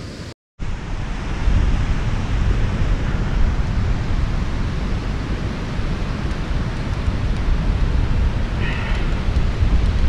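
Strong wind buffeting the microphone, a steady low rumble. The sound drops out for a moment about half a second in.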